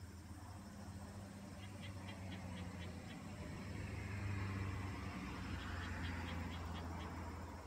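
A vehicle passing some way off, its sound swelling to a peak midway and then easing, over a steady low hum. Two short runs of quick, evenly spaced high chirps sound over it.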